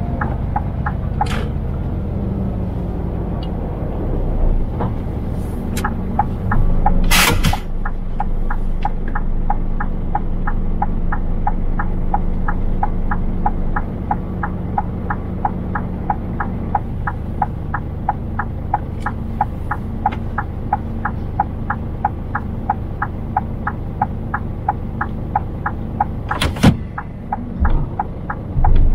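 Scania truck running steadily, heard from inside the cab as a low engine and road rumble. A regular ticking, about three ticks a second, runs through most of it, and a short sharp hiss of air comes twice, about 7 seconds in and near the end.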